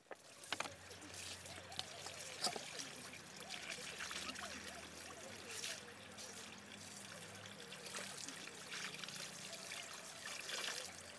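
Water poured from a kettle into a steel bowl holding a slaughtered, still-feathered chicken, trickling and splashing steadily with small spattering ticks. This is the scalding step that loosens the feathers for plucking.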